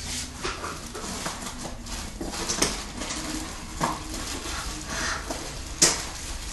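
Hands unpacking a boxed car amplifier: rustling packaging with several sharp knocks and clicks, the loudest near the end.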